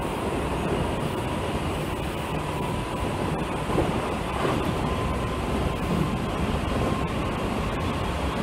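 Osaka Metro 66 series commuter train running at speed, heard from inside the car: steady wheel-on-rail running noise with a faint steady high tone above it.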